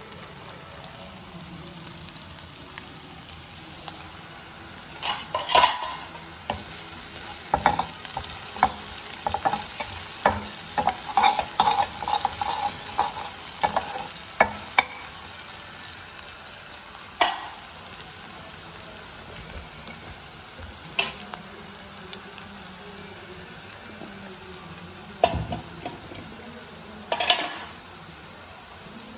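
Chopped onions and mustard seeds frying in a stainless steel kadai, with a steady sizzle under a metal spoon that scrapes and clinks against the pan as they are stirred. The stirring is busiest from about five to fifteen seconds in, then comes back as a few single scrapes.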